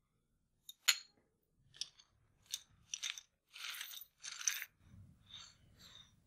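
Poker chips clicking and rattling together as a pot is raked in and stacked: a run of separate sharp clicks and short clattering rattles.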